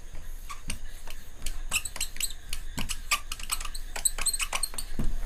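Marker pen writing on a whiteboard: a quick run of short squeaks and taps, one for each stroke of the letters.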